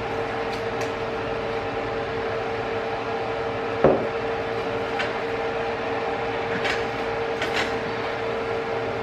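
A steady kitchen-appliance hum with a constant tone, with one sharp knock about four seconds in and a few faint clicks.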